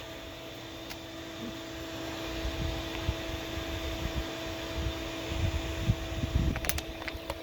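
Clothes dryer running, its blower pushing air out through the just-unclogged vent: a steady airy hum with a constant motor tone. A few sharp clicks come near the end.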